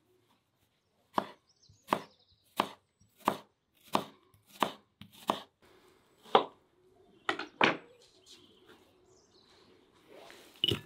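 Kitchen knife slicing an onion on a wooden cutting board: about ten sharp, regular chops, roughly one every 0.7 s, followed by one louder knock near the end.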